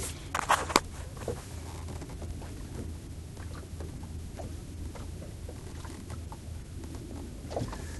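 A few sharp knocks in the first second, then small scattered clicks on a small fishing boat, over a steady low hum.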